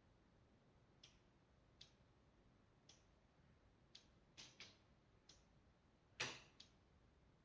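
Flat roof ticking and clicking: faint, sharp ticks at uneven intervals, about one a second, a few in quick pairs, with one louder crack about six seconds in.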